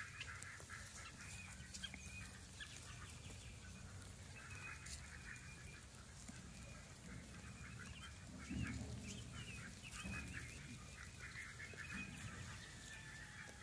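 Faint, distant calls of farmyard poultry: many short calls overlapping, with a brief low rumble about eight seconds in.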